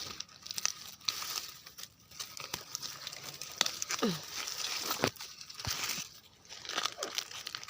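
Dry leaves and forest undergrowth rustling and crackling as they are handled and pushed through, in irregular crinkly clicks. A short falling squeak comes about halfway through.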